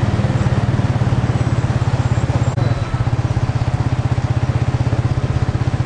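Motorcycle engine running steadily close by, a low hum with a fast, even pulse, over street noise.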